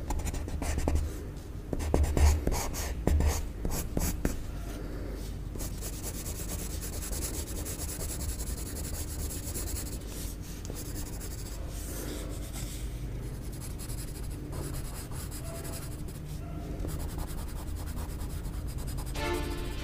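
Pencil scratching on drawing paper as lines are sketched. There is a quick run of short strokes in the first few seconds, then lighter, steadier strokes.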